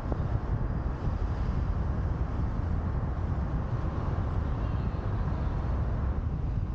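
Wind buffeting a camera microphone mounted on the roof of a moving car, a heavy uneven low rumble, over steady road and tyre noise as the car drives.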